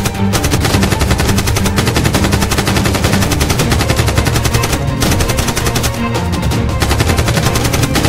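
Dubbed-in automatic gunfire sound effects, rapid sustained bursts with short breaks about five and six seconds in, over background music.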